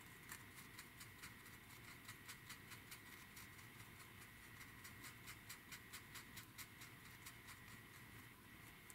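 Faint, fairly regular ticks and scratches, about two or three a second, of a small wet brush scrubbing paint off a plastic model part to chip it.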